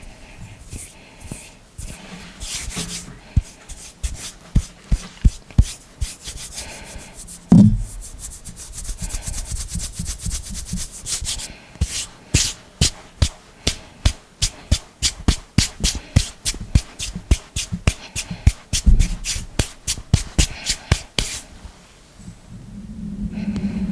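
Hands rubbing and fingers making quick sharp clicks and taps close to the microphone, with one heavier thump partway through. The clicks come several a second in long runs, very fast for a few seconds after the thump.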